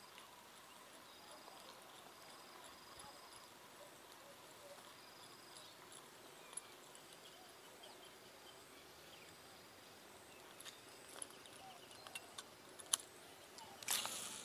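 Faint high-pitched insect chirps over quiet open-air ambience. Near the end come a few small tackle-handling clicks, then a cast: the swish of the rod and the whir of a baitcasting reel's spool paying out line, the loudest sound here, tailing off.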